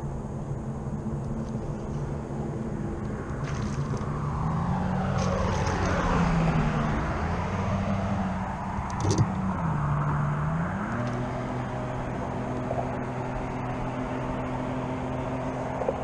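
Steady low engine drone, made of several tones, that steps up in pitch about ten seconds in. A passing vehicle sweeps through around five to seven seconds in, and there is a short sharp knock about nine seconds in.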